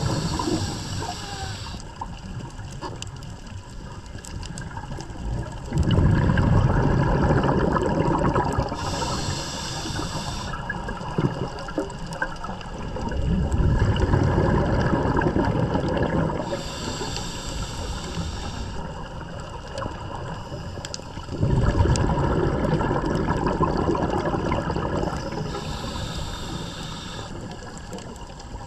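A scuba diver breathing underwater through a regulator. A short hiss on each inhale is followed by a long, low bubbling rush as the exhaled air leaves the regulator, repeating about every eight seconds, three to four times.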